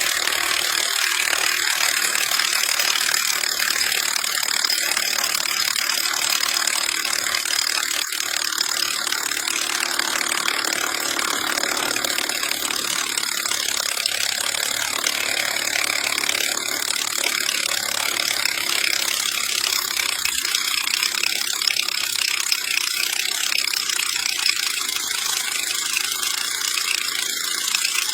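Cordless impact wrench running without a break, its hammer mechanism rattling steadily as it works at a large nut.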